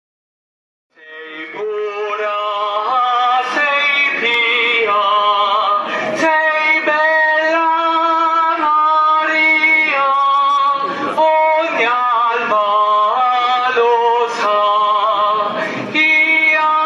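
Music with singing, a slow melody of long held notes with a slight wobble, starting about a second in.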